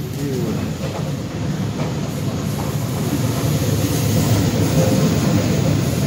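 Passenger train running on the rails, heard from inside the carriage: a steady low running noise of wheels and carriage that grows slightly louder over the few seconds.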